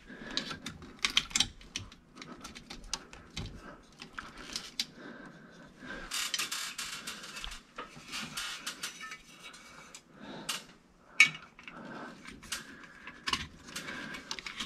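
Hands working with small tools and metal parts: irregular clicks and taps, a stretch of rustling about six seconds in, and a sharper knock about eleven seconds in.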